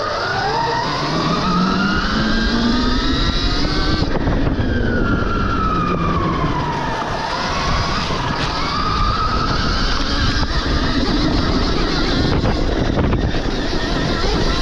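Stark Varg EX electric dirt bike's motor whining as it accelerates, the pitch rising over the first few seconds, dropping sharply about four seconds in as the throttle comes off, then falling and climbing again. Underneath is a steady rush of noise from the ride.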